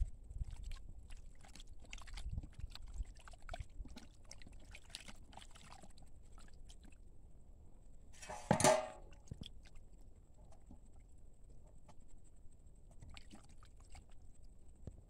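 Hands squelching and sloshing raw chicken livers in water in a steel bowl: soft wet squishes and small clicks, with one louder burst about halfway through.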